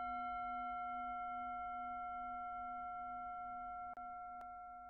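A single struck chime tone, bell-like with several pitches together, ringing on and slowly fading away. Two faint clicks come about four seconds in.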